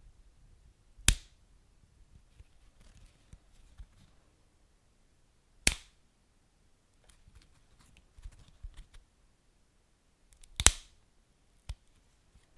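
Wood fire crackling: three loud, sharp pops roughly five seconds apart and a smaller one near the end, with faint small crackles in between.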